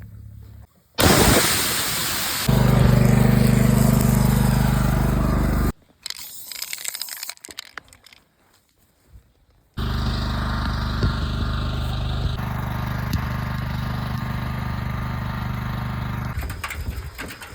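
An engine running steadily in two stretches, each cutting off suddenly, with a loud burst of noise before the first and a quieter gap of scattered knocks between them.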